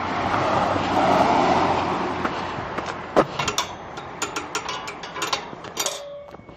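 Metal field gate being worked: a string of sharp metallic clanks, clicks and rattles from its latch and bars, with a brief ring near the end. Before that, a passing car rushes by, swelling and fading over the first two seconds.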